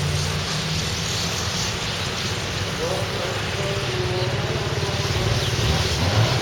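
Steady vehicle noise with a low engine hum, with faint voices in the background.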